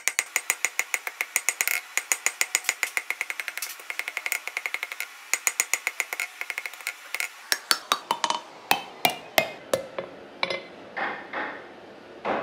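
Hand hammer striking a hot steel bar on an anvil, fast and even at about five blows a second with a bright ring on each. After about seven seconds the blows slow and come spaced apart.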